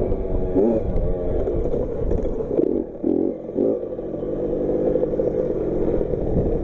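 Child's motocross bike engine revving up and down as it rides. It gives a few short throttle blips about three seconds in, then holds a steadier note.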